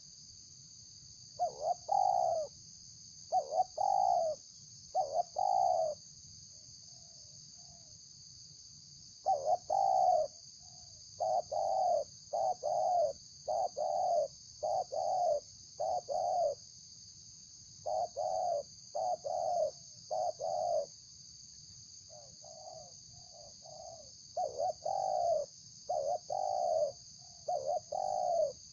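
Spotted dove (tekukur) cooing vigorously in repeated phrases of low, rolling coos, with short pauses between phrases, over a steady high-pitched hiss.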